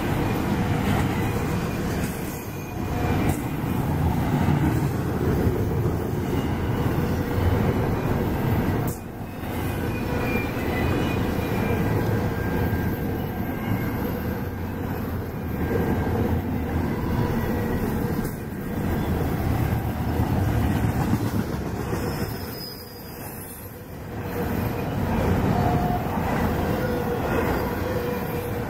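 Double-stack intermodal container well cars rolling past: steel wheels on rail making a continuous rumble and clatter, with faint high squealing tones at times. The loudness dips briefly about three-quarters of the way through.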